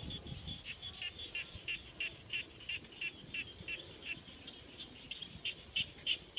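A steady series of short, high chirps, about three to four a second, from a calling animal such as a frog, insect or bird, over a low rumble.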